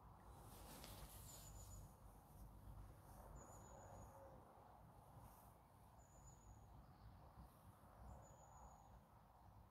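Near silence: faint outdoor ambience with four short, thin, high-pitched chirps about two seconds apart. The church bells are not ringing.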